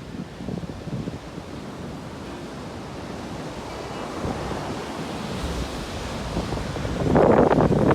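Heavy sea surf after a typhoon: waves washing in and building, with one loud wave crash about seven seconds in. Wind buffets the microphone.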